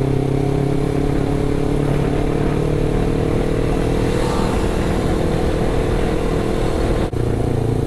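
Honda CBR250RR motorcycle engine running steadily at a light cruise, with wind and road noise; the sound drops out briefly about seven seconds in.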